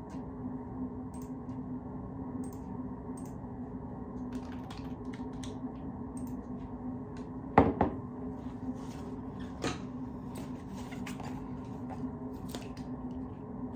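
Steady low room hum with scattered light clicks, a sharp knock about halfway through, like a cabinet door or drawer shutting, and a lighter knock about two seconds later.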